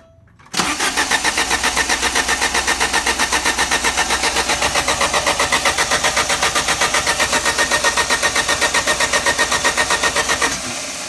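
Alfa Romeo Spider engine turning over on the starter motor for about ten seconds without catching, a fast, even pulsing, then the cranking stops and the sound dies away. A crank-no-start: the engine spins but does not fire.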